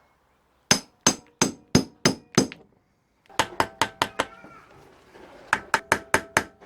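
Hammer blows on a hand impact driver set in a seized carburettor screw, metal on metal with a short ring after each strike. They come in three quick runs of five or six blows each. The screw does not free, and its head ends up shredded.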